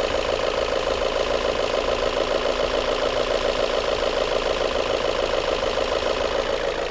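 Volvo S40 engine idling steadily and evenly now that the intake vacuum leak is sealed and the mass air flow sensor replaced, no longer misfiring or hunting.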